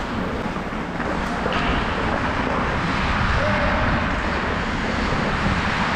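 Steady rushing noise of an ice hockey player skating, skate blades on the ice and wind over the body-worn camera's microphone.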